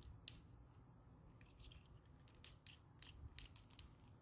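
Faint, irregular clicks and ticks of a die-cast Soul of Chogokin Voltes V figure's joints as its legs and feet are swivelled and posed by hand.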